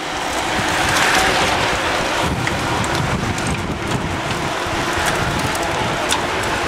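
A large pack of mountain bikes riding past in a mass start: a steady rush of knobby tyres and freewheels on tarmac, loudest about a second in.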